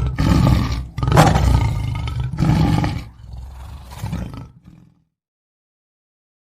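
Lion roaring: a run of deep, rough roars in several surges that fade away and end about five seconds in.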